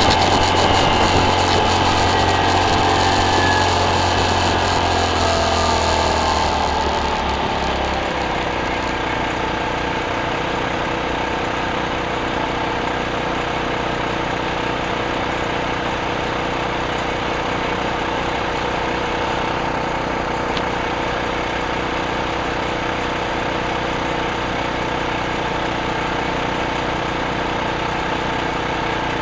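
Motorcycle engine slowing down, its pitch falling over the first several seconds, then idling steadily.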